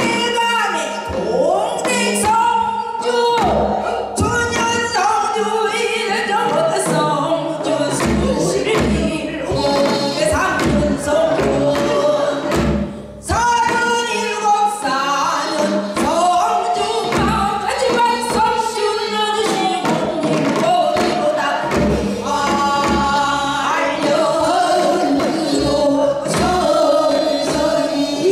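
Women singing Korean traditional folk song through microphones, solo lines and group passages, with wide wavering vibrato over regular low drum strokes.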